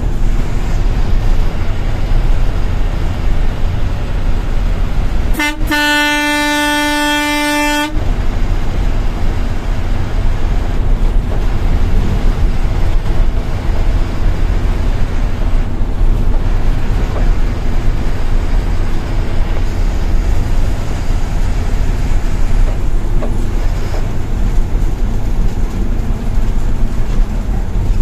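Engine and road noise of an intercity bus on the move, heard inside the cab. About five seconds in, a single steady horn blast lasts about two and a half seconds.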